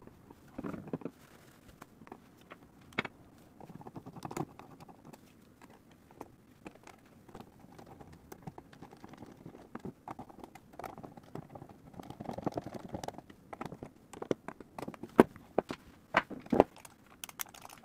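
Small clicks, taps and scrapes of a guitar-pedal enclosure being reassembled: a clear acrylic back plate set in place and its screws turned in with a screwdriver. A few sharper knocks stand out, the loudest near the end.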